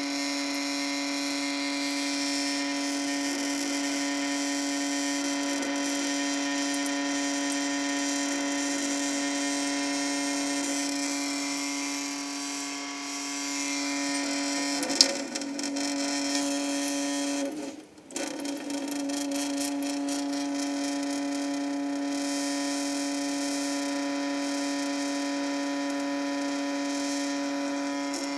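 Kitchen sink with the tap running, giving a steady humming drone with many overtones. The uploader puts the drone down to resonance, or more likely to a viscoelastic effect of the water stream. A sharp click comes a little past halfway, and the tone breaks off for a moment soon after, then returns.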